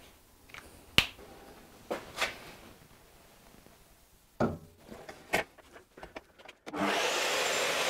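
Scattered knocks and clicks of steel stock being handled and set up, then about seven seconds in a power tool starts cutting the steel tubing with a steady, loud grinding noise.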